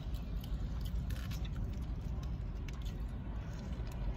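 A person biting into and chewing a sushi burrito with crunchy tempura inside: small scattered crunching clicks over a low steady rumble.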